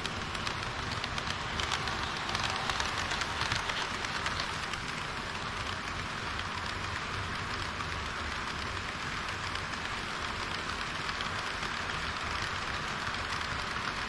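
Model train running along the layout track: a steady rolling hiss of wheels and motor with faint rapid clicks, a little louder about two seconds in.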